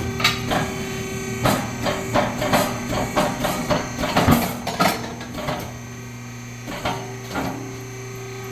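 Irregular metal knocks and clanks, several a second for about five seconds and then only a couple near the end, as a truck tire is worked off its rim on a tire-changing machine. A steady machine hum runs underneath.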